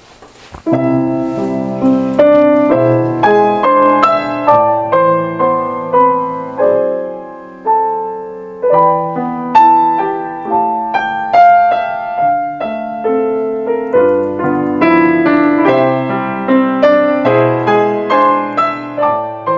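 Yamaha grand piano played solo: an original piece of melody over chords, starting about a second in and running on.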